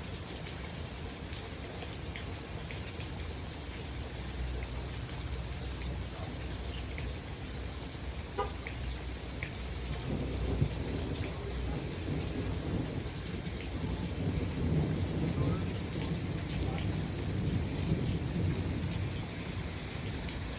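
Steady spring rain falling, with scattered drips, and low rolling thunder that swells from about halfway through.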